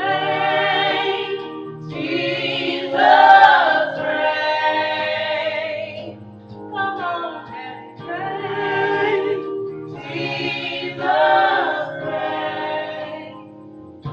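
Gospel choir singing, in sung phrases of a few seconds with short breaks between them, over steady sustained low accompaniment notes.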